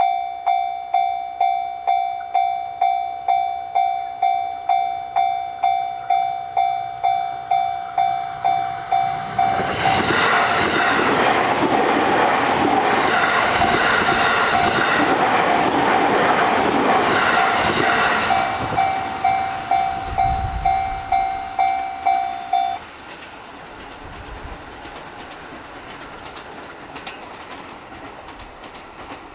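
Japanese level-crossing warning bell ringing its steady repeating 'kan-kan' tone while a JR Sobu Line train passes through the crossing about ten seconds in, its wheels clattering over the rails for around nine seconds. The bell stops abruptly a few seconds after the train has gone.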